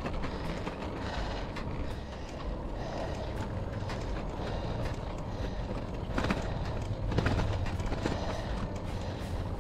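Trek Domane road bike climbing a coarse country lane: a steady rush of tyre noise and wind on the camera microphone, with a few sharp clicks and knocks in the second half.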